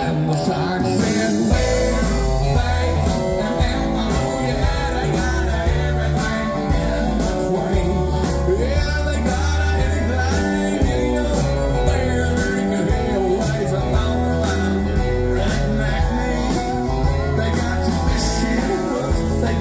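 Live country band playing: electric guitars and pedal steel over a steady drum beat and bass line, with a singer's voice in the mix.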